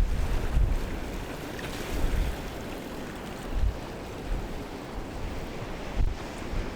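Wind buffeting the microphone: a steady rushing noise broken by deep, uneven gusts every second or two.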